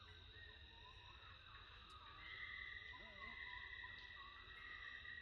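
Faint, steady high-pitched buzzing of insects, with a louder layer coming in about two seconds in. A few short wavering chirps sound near the middle.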